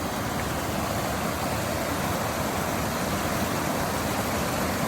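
Steady rushing of creek water, an even hiss with no distinct splashes.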